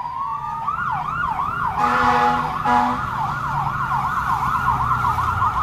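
Emergency-vehicle siren changing from a slow wail into a fast yelp, with two short horn blasts about two seconds in.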